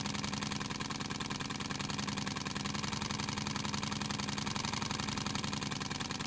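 Twin-cylinder Unit model steam engine running fast and steadily on compressed air, its exhaust beats coming too quickly to count, with a steady hum underneath.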